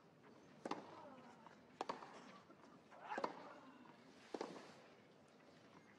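Tennis rally: racket strikes on the ball about every second and a quarter, four in all, with players grunting on their shots.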